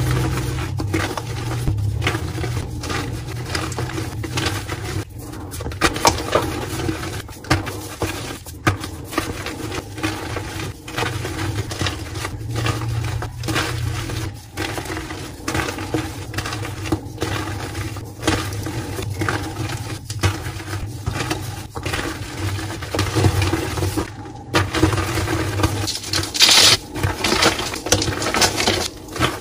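Hands crushing and crumbling blocks of dyed gym chalk into powder: a dense, continuous run of crunching and crackling, with a louder, sharper crack near the end.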